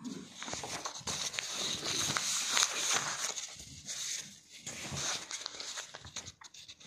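Paper rustling and crackling as a textbook's pages are turned and the book is handled, in a run of short irregular rustles.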